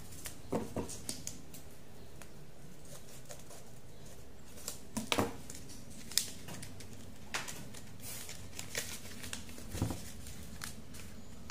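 A paper seed packet being handled and torn open by hand: scattered rustling and crinkling with a few sharper crackles, coming in short irregular bursts.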